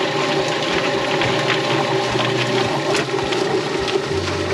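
Yardbird drum chicken plucker running: a steady motor hum and water spray, with irregular slaps and clicks as the birds tumble against the rubber fingers. The low hum changes pitch about four seconds in.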